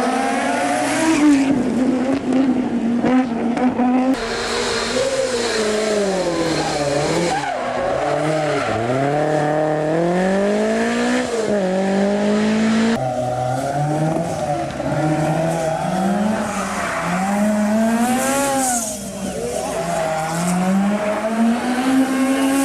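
Rally car engine revving hard, its pitch climbing and dropping again and again through gear changes, lifts and corners. The sound changes abruptly twice, a few seconds in and about halfway, as it jumps from one car to another.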